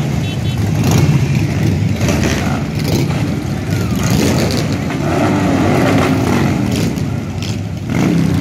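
A procession of cruiser motorcycles riding past one after another, their engines running at low parade speed. About halfway through, one engine's pitch rises and falls as it revs.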